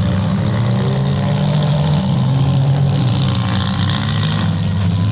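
Demolition derby cars' engines running and revving, loud and continuous, with several engine pitches layered together.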